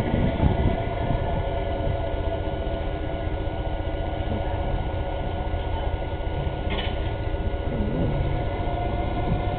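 A fishing boat's diesel engine running steadily under load as the boat pushes through harbour ice, a continuous low rumble with a steady hum over it.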